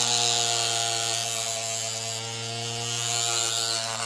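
Green Stuff World handheld cordless paint shaker running with a large bottle of paint clamped in it: a steady electric motor hum with a buzzing vibration.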